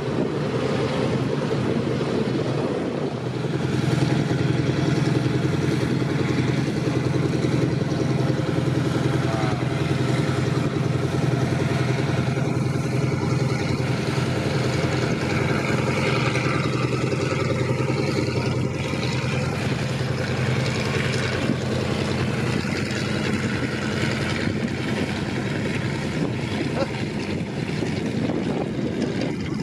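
Avro Anson's two Armstrong Siddeley Cheetah radial engines running at taxi power, a steady propeller drone that grows louder about four seconds in.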